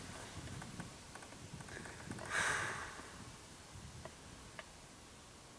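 A quiet lull with low background hiss. There is a soft rushing swell about two and a half seconds in, then two faint ticks near the end.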